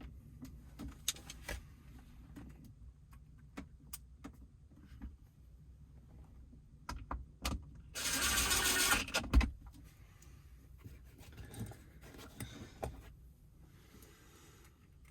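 Scattered light clicks and taps of plastic console trim and wiring being handled. Past the middle comes a loud rasping noise about a second and a half long, ending in a sharp knock.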